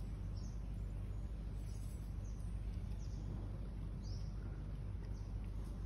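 Steady low outdoor rumble with a few short, high, falling bird chirps scattered through it.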